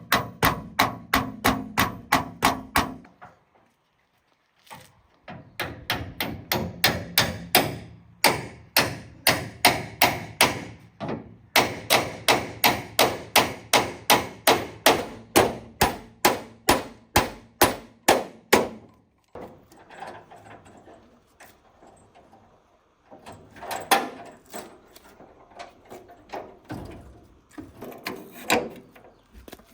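Hammer blows struck in fast, even runs of about three to four a second, with a short pause about three seconds in. After about nineteen seconds the blows become sparse and irregular.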